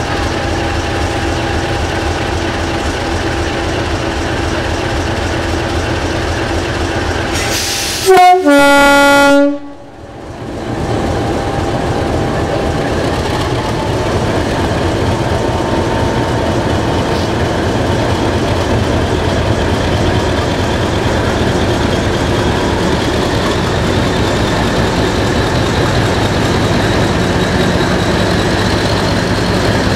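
English Electric Class 50 diesel locomotive running at the platform, then sounding its two-tone horn, a higher note followed by a longer lower one, about eight seconds in. Its English Electric 16-cylinder engine then builds up and grows steadily louder, rising in pitch as the locomotive pulls away with its train.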